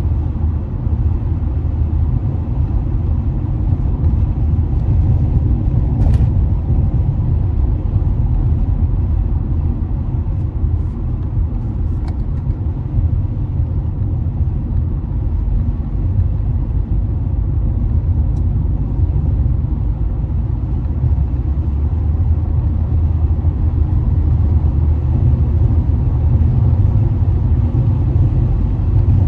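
A car driving at road speed, heard from inside the cabin: a steady low rumble of tyre and engine noise.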